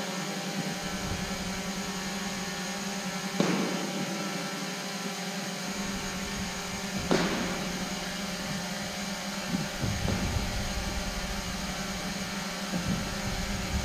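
Steady hum of the hall, broken by two sharp knocks, about three and a half and seven seconds in, from spear strikes in a spear-and-shield fencing bout. Low dull thuds of footwork on the floor mat come and go in the last few seconds.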